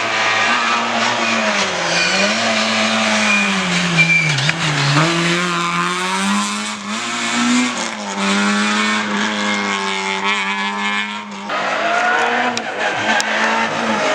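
Rally car engine revving hard on a stage, its pitch rising and falling repeatedly through gear changes and lifts, with a sharp drop about eleven seconds in.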